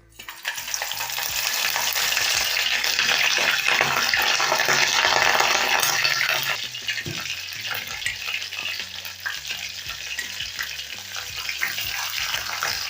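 Chicken feet deep-frying in very hot oil: a loud crackling sizzle that starts abruptly, holds strongest for about six seconds, then settles into a softer, steady sizzle.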